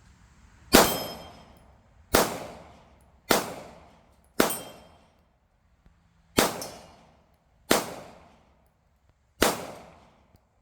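Glock 19 Gen 5 9mm pistol fired seven times in slow, deliberate succession, one to two seconds between shots, each shot ringing out with a short echoing decay.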